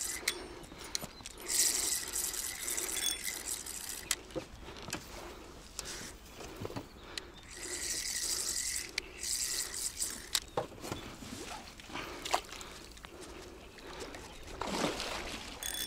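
Water splashing, trickling and dripping as a small boat is rowed, in uneven spells, with a few sharp knocks between them.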